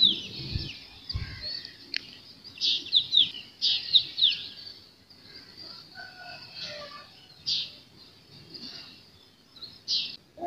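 Small birds chirping: clusters of short, high, quickly falling chirps, with quieter stretches between them.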